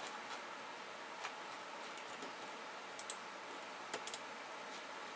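Quiet computer mouse button clicks, a handful scattered over a few seconds with some in quick pairs, over a steady low hiss.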